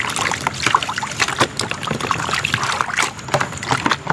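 Water splashing and sloshing in a plastic basin as a toy hammer is scrubbed back and forth by hand, in quick irregular splashes.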